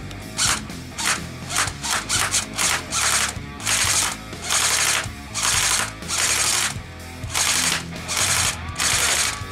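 Electric airsoft rifle firing in rampage (full-auto) mode, in repeated bursts: short, quick bursts at first, then longer bursts of about half a second, about a second apart. Steady background music plays underneath.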